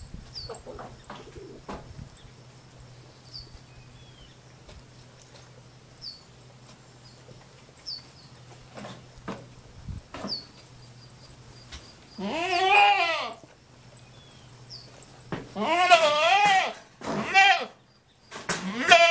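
A pony whinnying: four quavering calls in the second half, the first about twelve seconds in, each up to about a second long. A small bird gives a short high chirp every second or two.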